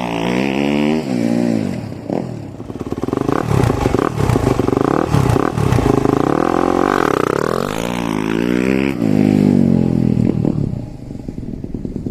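2022 Yamaha YZ250FX's single-cylinder four-stroke engine, breathing through an FMF Powercore 4 exhaust, revved up and let fall back several times, then dropping toward idle near the end.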